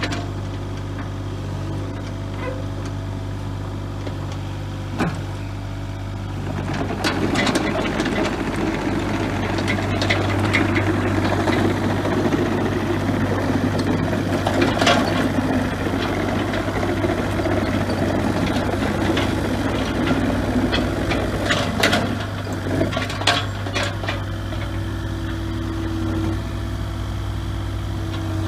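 Kubota KX040-4 mini excavator's diesel engine running steadily. In the middle it gets louder and rougher, with scattered clanks and knocks, and a steady higher tone joins near the end.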